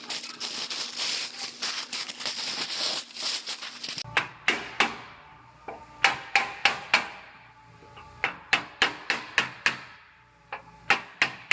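A dense, harsh noise for the first few seconds, then a hammer striking steel frame metal in quick runs of blows, each hit ringing briefly.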